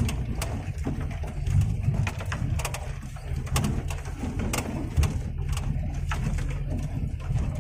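Suzuki Jimny 4x4 engine running with a low, steady rumble, with frequent sharp clicks and knocks.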